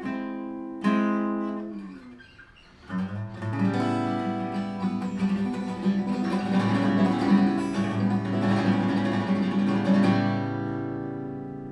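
Martin OMJM steel-string acoustic guitar strummed: two chords ring out and fade over the first two seconds. About three seconds in a denser, busier stretch of music with a steady low drone comes in, and it fades away near the end.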